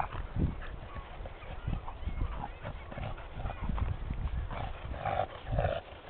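Footsteps crunching and thudding irregularly through deep snow, with the crunches closer together near the end.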